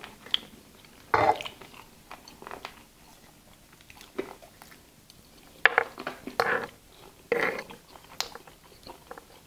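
People chewing and eating bites of spit-roasted turkey, with irregular short mouth sounds and a few light clicks of forks against the board and clay dish.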